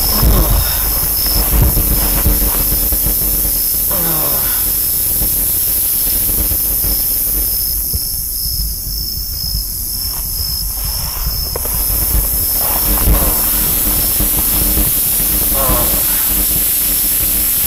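Loud, steady electronic hiss and static on a night-vision camera's audio track, over a low rumble: the sound of the camera malfunctioning.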